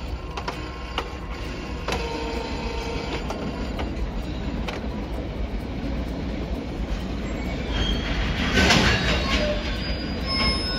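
Train running on the rails, its noise swelling to its loudest about eight seconds in, with high metallic squeal from the wheels or brakes.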